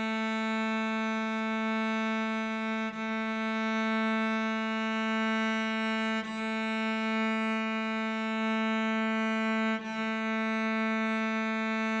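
Cello's open A string (the A below middle C) bowed as one long steady note, a reference pitch for tuning, with a brief break at each bow change, three times.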